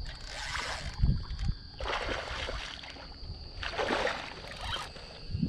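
Hooked red drum thrashing and splashing at the surface while being played on a spinning rod, in three short bursts about a second each, the last and clearest around four seconds in, over low wind rumble.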